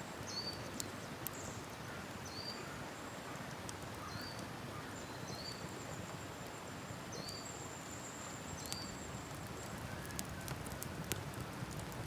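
Steady rush of river water with a campfire crackling and popping, the pops coming more often near the end. Over it, a bird gives seven or so short high chirps spaced irregularly through the first nine seconds.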